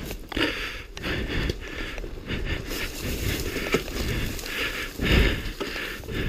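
Ferns and brush swishing and scraping against a dirt bike and its rider as the bike pushes slowly through overgrowth, with a few knocks and a louder brushing burst about five seconds in.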